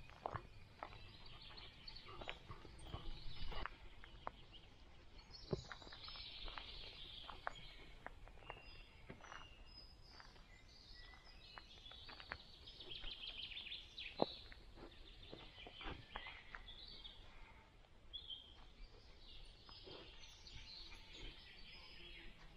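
Songbirds singing and chattering in a forest, over scattered crackles and clicks of footsteps on the forest floor.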